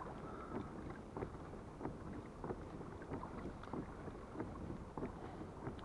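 Water lapping quietly against a plastic kayak hull on a calm sea, with small slaps every half second or so, over a light hiss of wind on the microphone.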